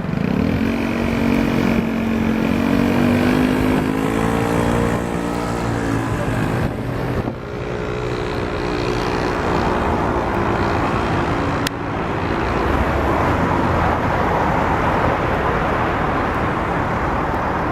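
2014 Ford Mustang GT's 5.0-litre V8 running, its pitch wavering gently. It breaks off abruptly twice and resumes, rougher and noisier after the second break.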